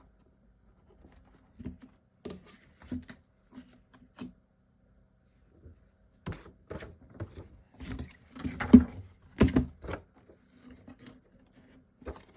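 Paper-craft handling noise: short taps, rustles and scrapes of a chipboard box and a sheet of vinyl being handled and pressed into place. The sounds are sparse at first, grow busier about halfway through, and include a few sharper knocks.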